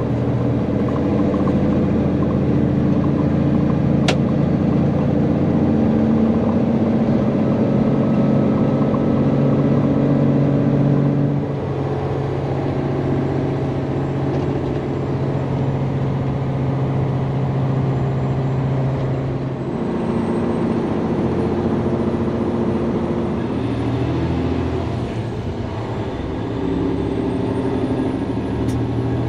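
Large diesel engine of harvest machinery running steadily at working speed, its pitch shifting a few times as the engine load or speed changes, with a single sharp click about four seconds in.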